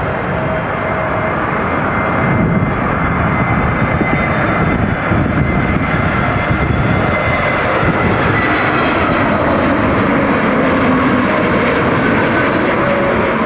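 Jet airliner engines running loud and steady as a plane passes, with faint whining tones that slowly drift in pitch. Wind gusts buffet the microphone underneath.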